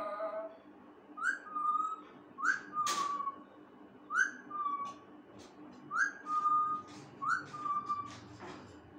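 Pet parrot whistling the same short two-note phrase five times, a quick upward swoop dropping into a held steady note, with a sharp click about three seconds in.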